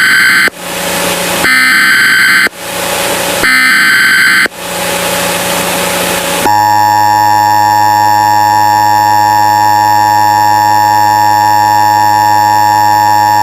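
Emergency Alert System SAME header: three loud one-second bursts of screeching data tones, each trailing off into hiss. About six and a half seconds in, the steady two-tone EAS attention signal starts and holds. Together they mark the start of an emergency alert broadcast.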